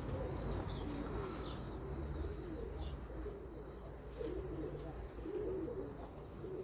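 Domestic pigeons cooing repeatedly, with small birds chirping higher up and a low wind rumble on the microphone.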